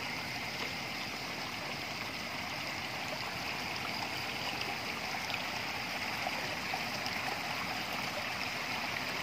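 Shallow water running steadily through a gap and past a net fish trap: a constant rushing with no breaks.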